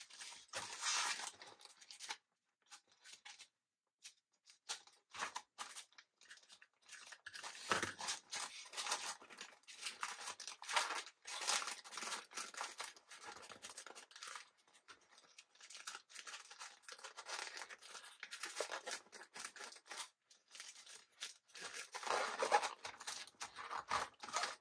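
Irregular crinkling and rustling of a chip bag and its glossy photo-paper sleeve being crimped and folded by hand, with a brief pause about two seconds in.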